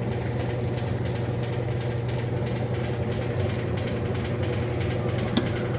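Whirlpool direct-drive top-load washing machine running with a steady low hum and a rattle as it shakes on uneven ground, a rattle that is normal for this machine. One sharp click near the end.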